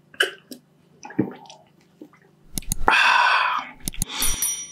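Wet mouth and swallowing sounds after a gulp of ginger lemon juice. About two and a half seconds in comes a loud, long breathy exhale, and near the end a brief high glass clink.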